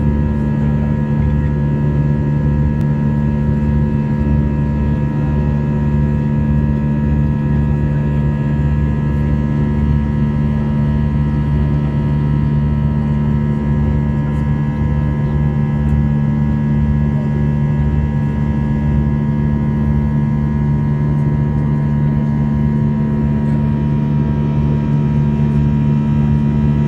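Jet airliner cabin noise in flight: a loud, steady engine drone with a constant low hum that does not change in pitch.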